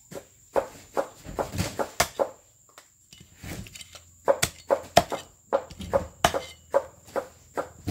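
Meat cleaver striking a whole fish on a wooden chopping block: repeated sharp knocks, irregular at first, then settling into a steady run of about three strikes a second in the second half.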